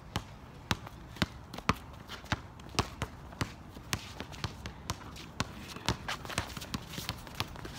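Basketball dribbled on a hard outdoor court: a steady run of sharp bounces, about two a second.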